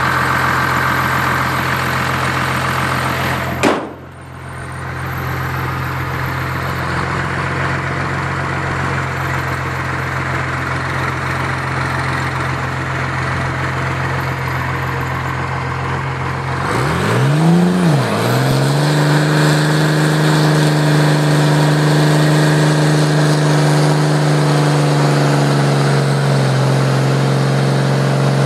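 A car engine runs steadily, broken by a sharp click about four seconds in. Then a Chevrolet Chevelle muscle car's engine revs up and down once and is held at high, steady revs while its rear tyres spin in a smoky burnout.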